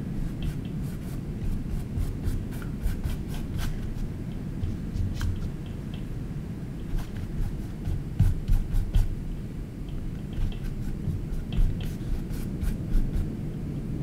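Paintbrush working on a small stretched canvas: soft scratchy brush strokes and dabs with clusters of light ticks, the sharpest about eight to nine seconds in, over a steady low rumble.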